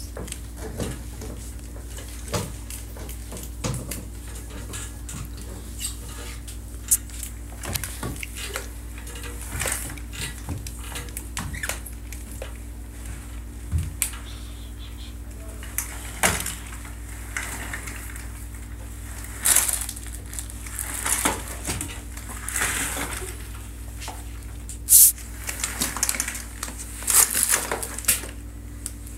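Irregular clatter, clicks and short rustles of small objects being handled, over a steady low hum; the noises come thicker and louder in the second half.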